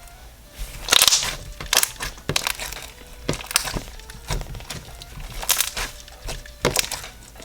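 White-glue slime packed with foam Floam beads being squished and twirled, crackling and popping in irregular bursts as the air pockets break; the loudest bursts are about a second in.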